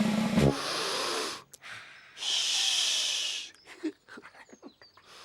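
A Teletubby character sniffing deeply at a flower: two long breathy sniffs, the second starting about two seconds in, followed by a few faint clicks.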